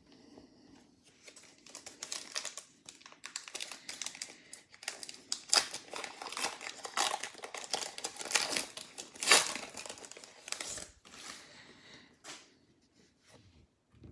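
Pokémon trading card booster pack wrapper crinkling and tearing as it is ripped open by hand: an irregular rustle with a few sharp crackles, dying down over the last few seconds.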